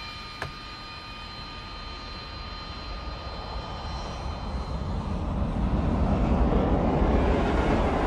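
Jet aircraft rumble growing louder as the plane approaches, loudest near the end.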